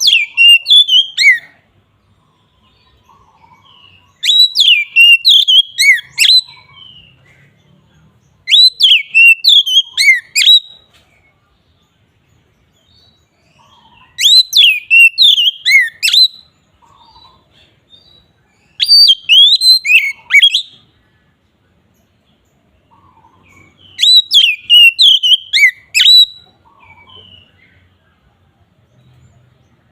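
Oriental magpie-robin (kacer) singing in full, open voice (ngeplong): short phrases of rapid, varied whistled notes about two seconds long, repeated six times with pauses of a few seconds between.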